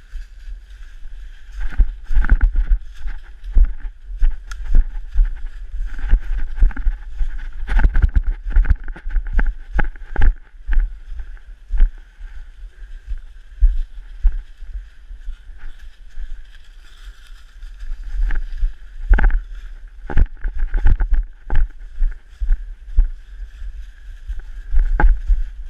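Footsteps tramping through dry leaf litter on a forest floor, with irregular low thumps and rumble from a body-worn camera jostling with each stride.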